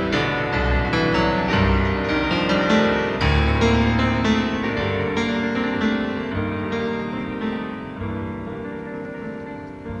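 Solo piano music with a quick run of notes over low chords, growing gradually softer over the last few seconds.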